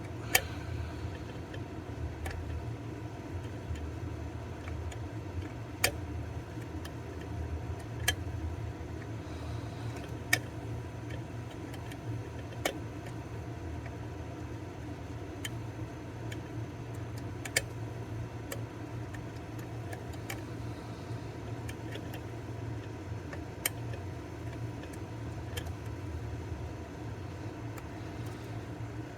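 Lock pick probing the pins inside an EVVA DPI pin tumbler lock: sharp metallic clicks every few seconds as each pin is touched and pushed, over a steady low hum.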